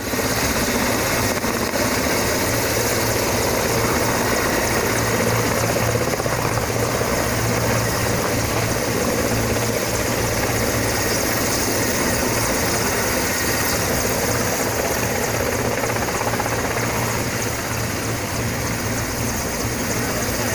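Military helicopter's rotor and turbine engine running steadily, a constant loud beat and whine with no change in pitch.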